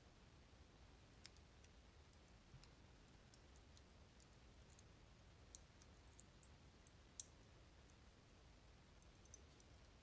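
Faint, irregular tiny metallic clicks of steel tweezers against the small pins and springs of a Kaba Ace dimple lock being taken apart, with the sharpest click about seven seconds in; otherwise near silence.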